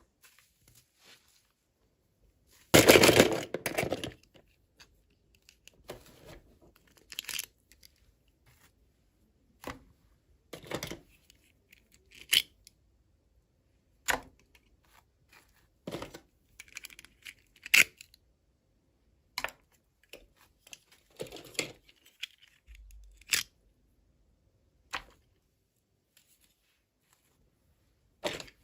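Packaging torn open about three seconds in, followed by scattered clicks and short rustles as the package and small toy pieces are handled.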